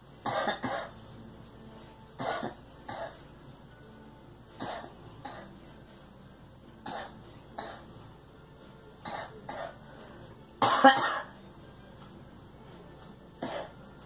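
A young woman coughing: a series of short coughs, many in quick pairs, with one loud, longer coughing fit about eleven seconds in.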